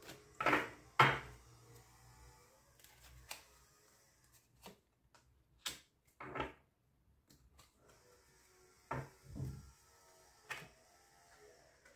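Oracle cards being shuffled in the hands, with a drawn card laid on the table: a scatter of short slaps and rustles of card stock with quiet gaps between. The loudest two come right at the start.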